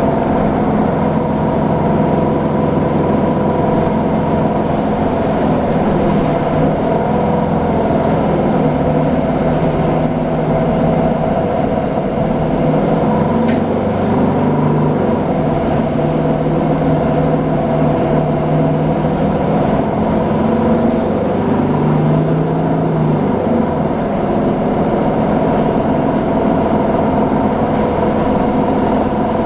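Nova Bus LFSA articulated city bus running in traffic: a steady drivetrain hum with held tones that shift in pitch a few times as the bus changes speed.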